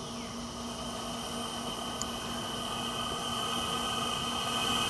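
Propane jet burner under a large boil pot running with a steady hiss and a thin high whistle, growing gradually louder as the flame is turned up.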